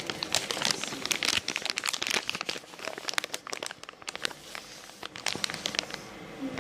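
Rapid crinkling and crackling, a dense run of quick clicks that thins out after about three seconds.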